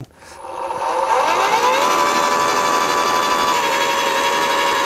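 Cordless AEG post hole borer, twin 18V batteries, starting with a click. Its motor and gearbox wind up over about two seconds, then run at a steady whine.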